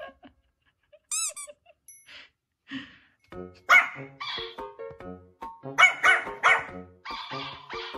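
A small fluffy white puppy barking in a run of short, high yaps, loudest about four and six seconds in.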